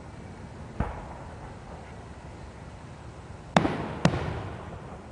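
Aerial fireworks shells bursting: a softer bang about a second in, then two loud, sharp bangs half a second apart about three and a half seconds in, each trailing off in echo.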